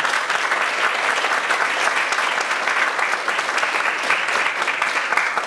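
An audience applauding with dense, steady clapping at an even level.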